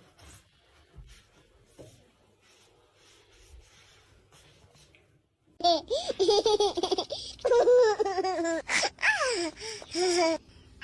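A person laughing loudly and high-pitched in several bursts, starting a little past halfway, after a few seconds of only faint clicks and taps.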